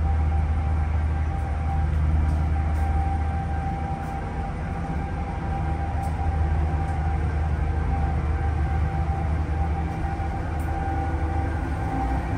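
A car ferry's engines running steadily under way, heard inside the passenger lounge: a deep, even hum with a thin, steady whine above it.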